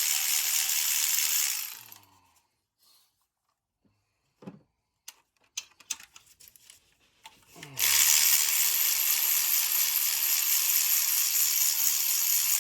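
Compressed-air tool hissing loudly in two stretches: about two seconds, then again from near the end of the first half for about five seconds. In between come light metal clicks and taps and one brief squeak.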